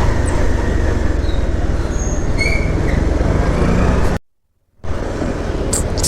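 Steady road-vehicle running and road noise from a moving ride, low and rumbling. It cuts off to dead silence for about half a second just after four seconds in, then resumes.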